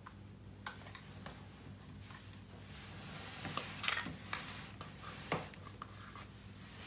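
A small plastic cup handled in a plastic mixing bowl: scattered clicks and knocks, with a stretch of crackly rubbing and scraping in the middle, over a steady low hum.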